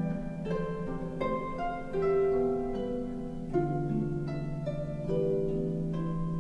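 Background music: plucked harp-like notes over sustained low string tones, a slow gentle piece.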